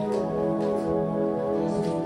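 Organ playing slow, sustained chords, the notes changing every half second or so, as a closing postlude.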